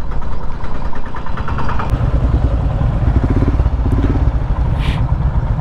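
Motorcycle engine running on the move, a steady low rumble with a fast pulsing beat.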